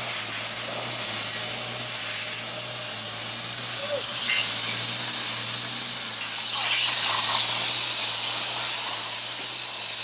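Construction-site noise: an even, steady hiss over a low steady hum, growing louder for a couple of seconds past the middle.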